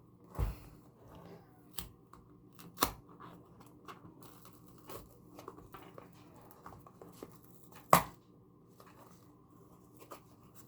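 Packaging being torn and opened by hand: tearing and crinkling rustles with small clicks, and three sharper knocks, the loudest about eight seconds in.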